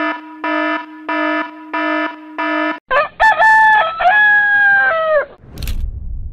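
Digital alarm clock beeping in an even electronic pulse, about three beeps every two seconds. About three seconds in it gives way to a rooster crowing once, a cock-a-doodle-doo of about two and a half seconds, followed by a single short click.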